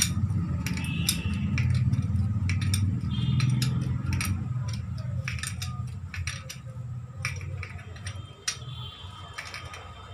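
Ring spanner and screwdriver clinking against the rocker-arm adjusting screw and lock nut of a Mahindra Scorpio 2.6 engine's valve train as the valve clearance is set and the lock nut tightened: scattered sharp metallic clicks over a steady low hum.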